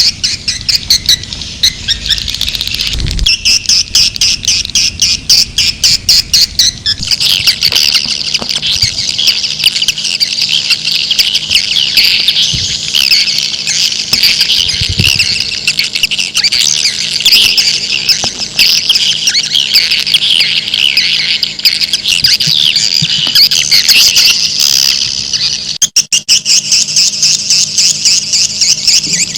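Recorded swiftlet calls of the kind used to lure swiftlets into a nesting house: dense, high-pitched chirping and twittering, with rapid even ticking at the start and again near the end.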